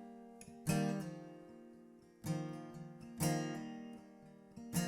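Acoustic guitar strumming single chords about once a second, each left to ring and fade before the next.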